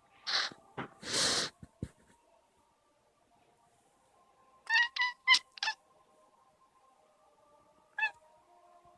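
Two short hiss-like noises in the first second and a half, then a cat making short, high chirping meows: four in quick succession about five seconds in and one more near the end. These are the excited chirps a cat makes while watching a moving light reflection.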